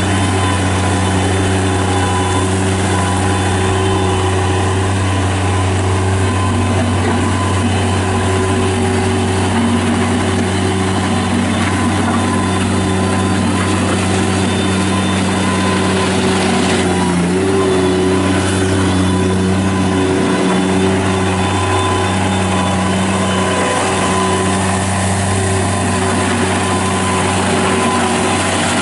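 2015 Bobcat MT55 mini track loader's Kubota diesel engine running steadily, with a couple of brief dips in engine speed about halfway through.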